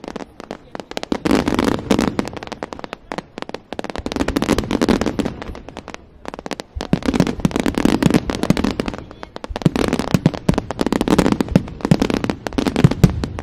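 Big fireworks display: dense volleys of aerial shells bursting with crackling and popping, swelling and easing in surges every few seconds.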